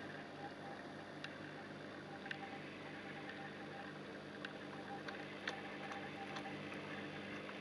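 Steady hum of the saltwater aquarium's pump and circulating water, with about six faint sharp ticks scattered through it.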